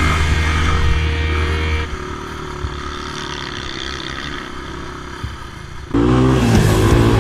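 Honda ATC three-wheeler single-cylinder four-stroke engines running across sand dunes. The engine sound drops quieter about two seconds in. Near the end a loud engine starts suddenly and revs up and down: the ATC200X heard from on board.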